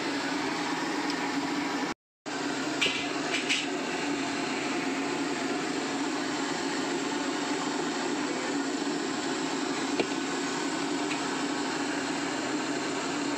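Steady mechanical hum and hiss, with a few light taps and clicks, cut out to silence for a fraction of a second about two seconds in.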